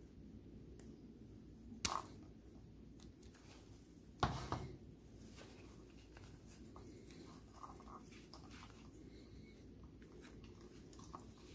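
Small plastic parts handled by gloved hands: two sharp clicks, one about two seconds in and a slightly longer one a couple of seconds later, then faint rustles and ticks as the flat airbag ribbon cable and its plastic connector are worked on the steering-column switch.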